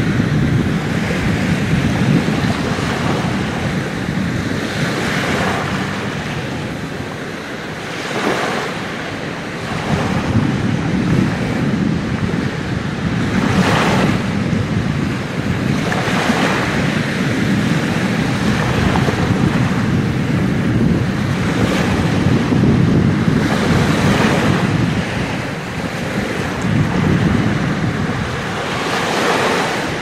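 Small waves breaking and washing up over sand at the water's edge, each break a swell of rushing surf every few seconds, over a steady bed of sea noise. Wind is buffeting the microphone.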